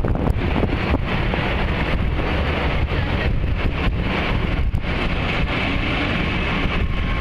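Wind buffeting the microphone of a camera riding on a moving bicycle: a loud, steady, deep rush.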